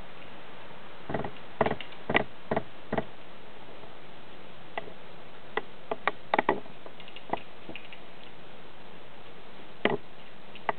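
Light wooden clicks and taps from a popsicle-stick and dowel scissor-lift model being handled and flexed, coming in irregular clusters, over a steady hiss.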